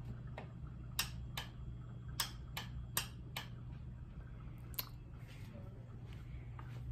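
Wall rocker light switch flicked on and off again and again: a run of sharp clicks, about two a second, then a pause and one more click.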